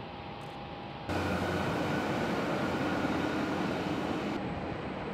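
Steady engine noise on an airport apron, a rumble with hiss and a few steady tones. It jumps sharply louder about a second in and drops back near the end.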